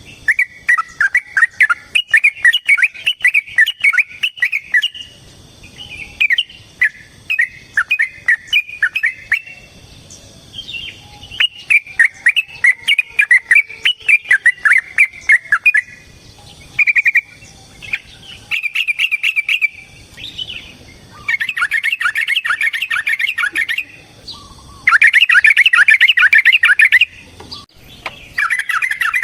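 Yellow-vented bulbul (trucukan) singing long runs of rapid chattering notes, phrase after phrase with short pauses between. The later phrases are denser and louder.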